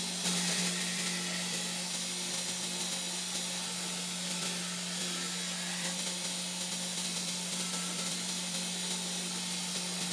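Belt grinder running with a steady hum while a steel knife blade is ground against its abrasive belt. The grinding gives a harsh hiss that is loudest in the first second.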